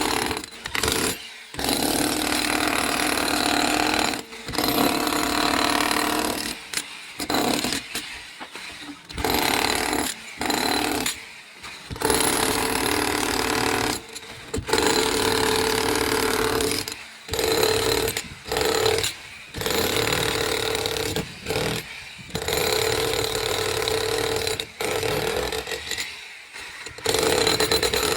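Power tool working a concrete slab, breaking and cutting it. It runs loudly in stretches of a few seconds that stop abruptly many times.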